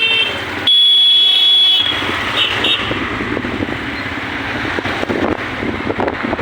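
Train running with a steady rumble and irregular clatter. About a second in, a loud high-pitched tone sounds for about a second, followed by two short high blips.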